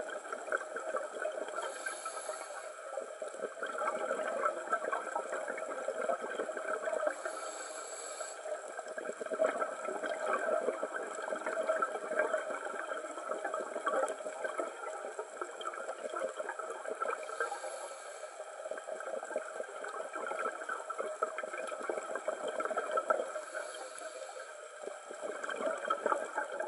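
Underwater ambience through a dive camera's housing: a constant crackling hiss, with a rush of a scuba diver's exhaled regulator bubbles four times, every six to nine seconds.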